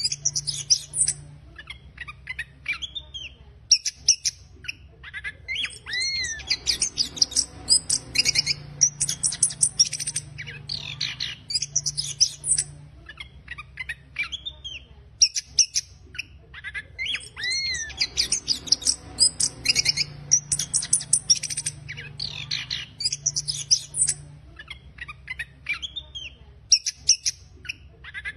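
Caged chestnut-capped thrush (anis kembang) singing its harsh, rapid twittering song, the 'ngeriwik kasar' style: dense runs of high chirps broken by short pauses. A phrase with arching whistled notes returns about every eleven seconds.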